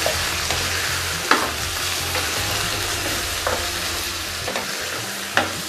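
Raw chicken pieces frying in hot oil with onions and ginger-garlic paste, a steady sizzle as they are stirred in the pan. A few sharp taps of the utensil against the pan come through, one a little over a second in and another near the end.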